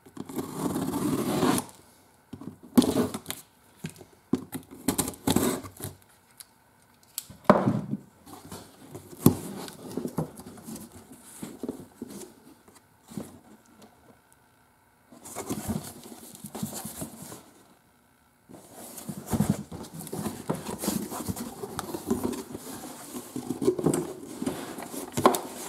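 A cardboard shipping box being cut open and unpacked by hand: a knife slitting the packing tape at the start, then cardboard flaps scraping and knocking, and plastic packaging rustling near the end.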